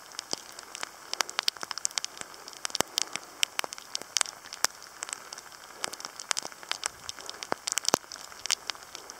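Rain falling, with many sharp, irregular drop ticks several times a second close to the microphone over a soft steady hiss.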